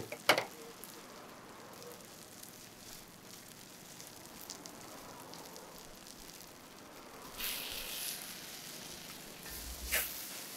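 Food frying in hot oil, a steady sizzle, swelling louder for a moment about seven and a half seconds in. A sharp knock comes just after the start and another near the end.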